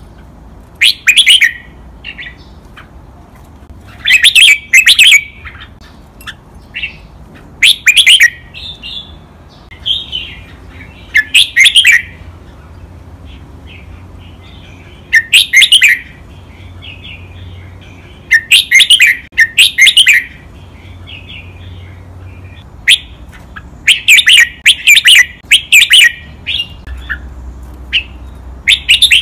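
Red-whiskered bulbul singing: loud, short, sharp song phrases repeated every few seconds, several of them doubled in quick succession, with quieter chattering notes in between.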